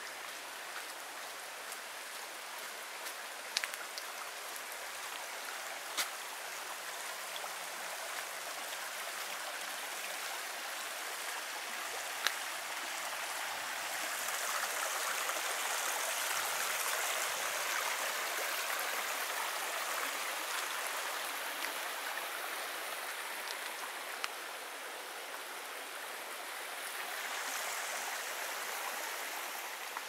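Shallow rocky mountain stream running over stones, a steady rushing that grows louder about halfway through and again near the end. A few brief sharp clicks are heard over it.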